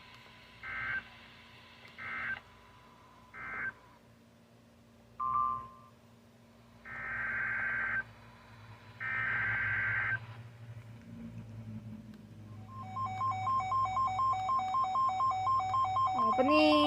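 Emergency Alert System broadcast signals: three short digital data bursts about a second apart, then two longer data bursts, followed by a rapidly pulsing two-tone alert tone that begins about three-quarters of the way in and runs on.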